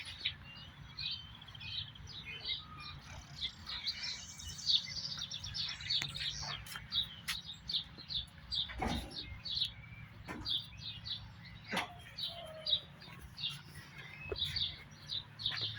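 Small birds chirping rapidly and repeatedly over a faint low steady hum, with a few sharp clicks.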